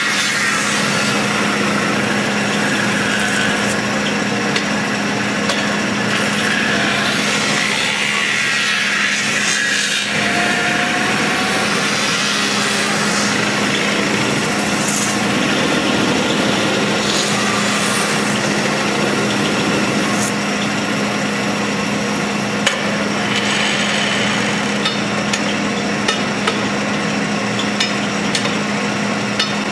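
Metal-spinning lathe running with a steady hum while a long hand-levered spinning bar is pressed against the rotating sheet-metal dome, giving a continuous scraping, hissing rub that swells and eases as the tool works the metal. Short sharp clicks and squeaks come through now and then in the second half.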